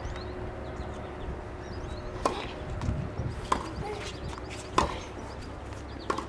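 Tennis rally: a serve struck about two seconds in, then sharp racket-on-ball hits about every 1.3 seconds, four in all, the third the loudest.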